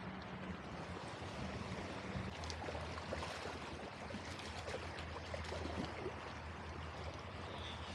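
Shallow creek water running steadily over gravel.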